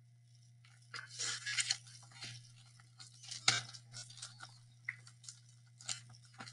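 Faint paper rustling with scattered soft clicks and taps as a picture book's page is turned and the book is handled, starting about a second in.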